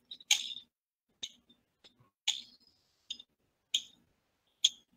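Six short, sharp clicks, roughly a second apart, with quiet in between.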